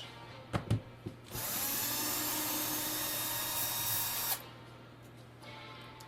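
Power drill-driver backing out a bass bridge's mounting screw, running steadily for about three seconds and then stopping abruptly, after a couple of light clicks as the bit is set on the screw.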